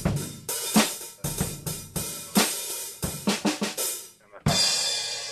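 Drum kit played in a quick, busy run of hits. It ends about four and a half seconds in on a cymbal crash that rings out and fades away.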